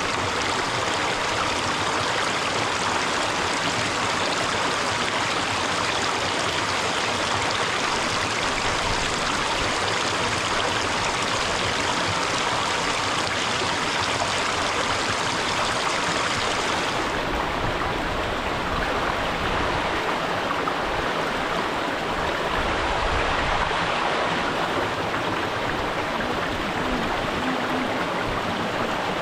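Rushing water of a mountain stream and waterfall, a steady, loud hiss. About two-thirds of the way through the sound turns duller as its brightest part falls away.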